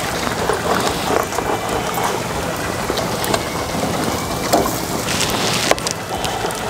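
Braised country-style pork ribs sizzling on a gas grill's hot grates, a steady crackling hiss. A few sharp clicks of metal tongs against the grate come in the second half.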